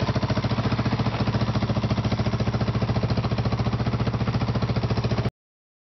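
Honda 350 4x4 ATV's air-cooled single-cylinder engine idling steadily, an even beat of about ten to twelve pulses a second; the engine has a freshly rebuilt top end (new head, new springs, ring job). The sound cuts off suddenly near the end.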